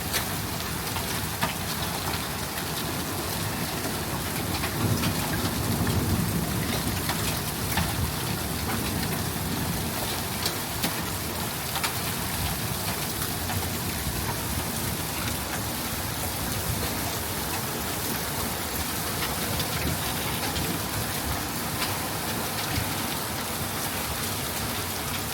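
Heavy rain mixed with hail: a steady hiss of downpour with many sharp ticks of hailstones striking hard surfaces. A low rumble swells about five seconds in and fades by about ten seconds.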